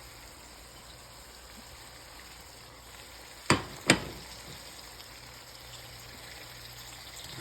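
Spiced minced beef frying in a wok, a steady low sizzle. About halfway through there are two sharp knocks, about half a second apart.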